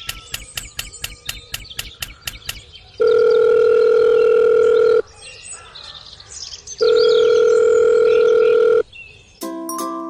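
Rapid clicking, about five clicks a second, with birds chirping, then two long steady electronic tones of about two seconds each with birdsong between them. Mallet-percussion music starts near the end.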